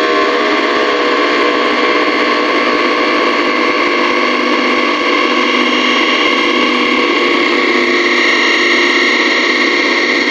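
Bombardier Talent 2 electric train's IGBT VVVF traction inverter, slowing. A set of falling tones breaks off just after the start as the inverter leaves 15-pulse synchronous mode. It is followed by a steady, noisy hiss with a few faint held tones from asynchronous random modulation at about 550 Hz.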